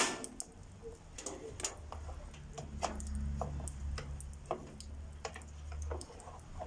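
Scattered clicks and light knocks of plastic hose, tubing and a power cord being handled on a homemade cutting machine, with a low hum for a few seconds in the middle.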